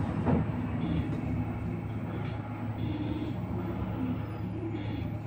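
Cabin noise inside a moving electric bus: a steady low hum from the electric drive under an even rush of road noise.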